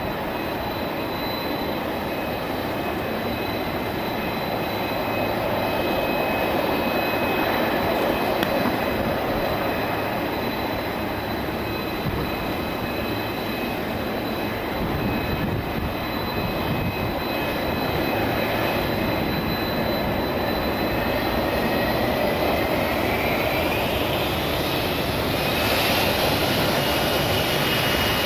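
Boeing 747 freighter's jet engines running steadily with a high whine while it holds on the runway. Later on, the whine rises in pitch and the rush grows a little louder as the engines spool up for the takeoff roll.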